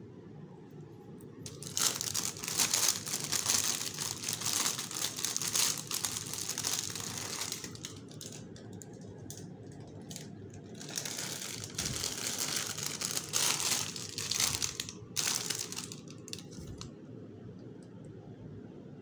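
Crinkling and rustling from potted plants and their wrapping being handled close to the microphone, in two spells: from about two seconds to eight seconds in, and again from about eleven to sixteen seconds.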